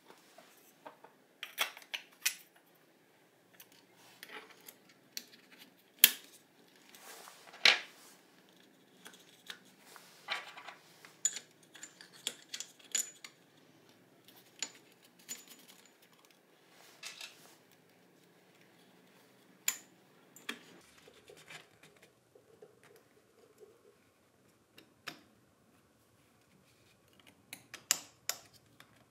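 Metal parts and hand tools being handled while working on a demolition hammer: irregular clicks, taps and light clinks with short pauses between them, and a few sharper knocks.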